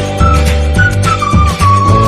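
Background music: a flute-like melody of short notes stepping down, ending on one long held note, over a steady bass beat.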